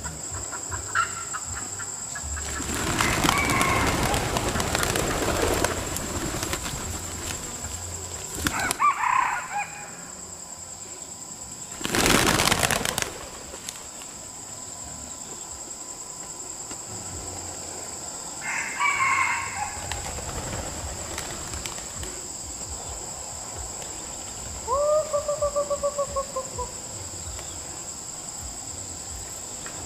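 Chickens: a rooster crowing a few times, each call about a second long, with the last one drawn out and stuttering. Two bursts of wing flapping, the loudest just before the middle.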